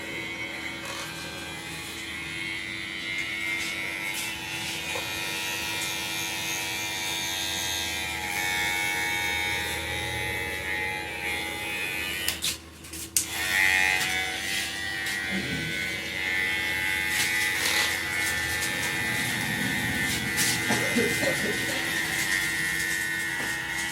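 Steady electric buzz of a small motor, holding one pitch. It cuts out for about half a second midway, then resumes.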